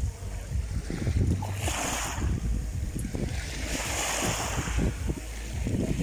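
Sea waves washing in twice, swelling about a second and a half in and again around four seconds, over a steady low rumble of wind on the microphone.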